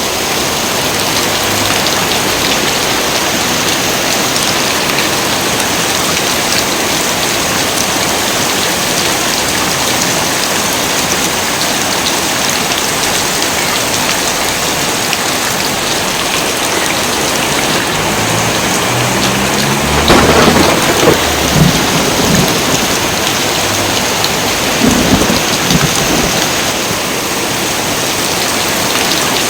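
Heavy rain pouring steadily, with a rumble of thunder about two-thirds of the way in and a second, shorter rumble a few seconds later.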